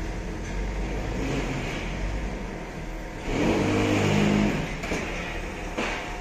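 Truck engine driving the hydraulic crane of a truck-mounted knuckle-boom crane as it swings a load of bricks. The engine revs up for about a second and a half midway, then drops back. There is a short clank near the end.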